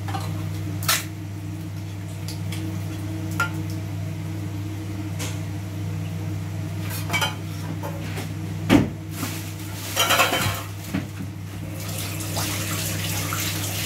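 Kitchen clatter: dishes and cutlery clinking and knocking in scattered strikes, busier about ten seconds in, over a steady low hum.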